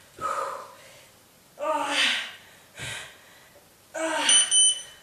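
A woman's short, breathy vocal sounds of exertion, three of them about a second apart, during a leg-lift exercise. Near the end come two short high electronic beeps.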